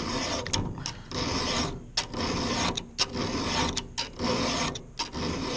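Round chainsaw file scraping across a saw chain's cutter tooth in repeated strokes, about one a second, sharpening the underside of the top plate.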